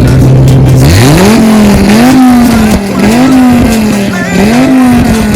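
Dodge Viper's V10 engine, with heads and cam, running loud. It holds a steady note for about a second, then revs up sharply, and the revs rise and sag again roughly once a second after that.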